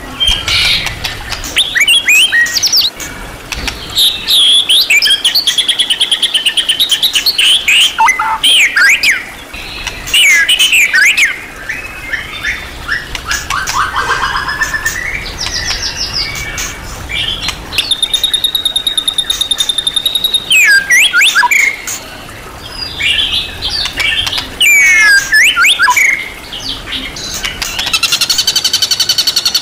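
White-rumped shama (murai batu) singing a fast, varied song of whistles, slurred notes and trills, packed with mimicked phrases. Midway it holds a steady whistle for about two seconds, and near the end it runs into a rapid buzzy trill.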